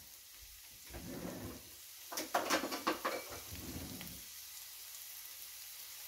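Diced onions sizzling softly in avocado oil in a nonstick frying pan, with a short run of crackles and pops about two to three seconds in.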